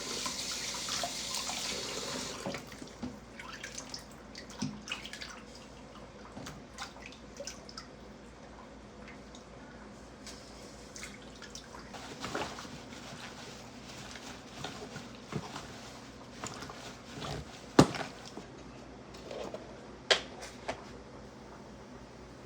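Kitchen sink tap running for about two seconds, then turned off, followed by scattered drips, clicks and light knocks, with a sharp knock near the end and another just after.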